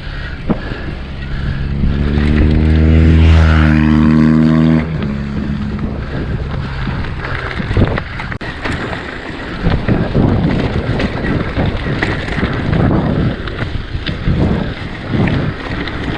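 A mountain bike rolling over a rough double-track bridleway: tyre rumble, chain and frame rattles, and wind buffeting the microphone. For the first few seconds a steady motor-vehicle engine drone sits on top, cutting off about five seconds in.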